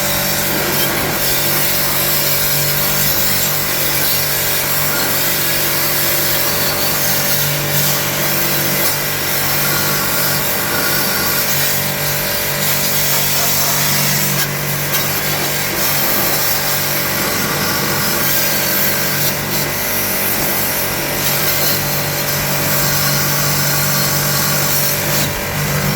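A motor running steadily, with a hum and a loud hiss over it.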